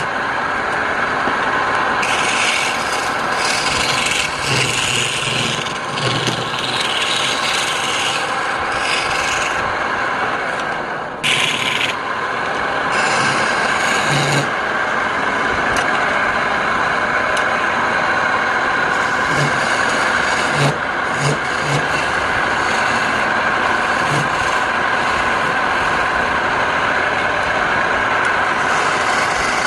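Wood lathe running, with a cutting tool or abrasive scraping against the spinning wooden workpiece in uneven passes over a steady hum.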